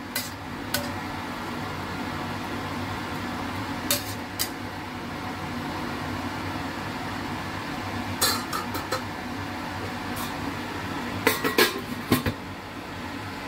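A metal spatula scrapes and clinks against a stainless steel wok as simmering pork and preserved vegetables are stirred, a few scattered clinks over a steady background noise. Near the end comes a cluster of metallic clatters as the domed steel lid is set on the wok.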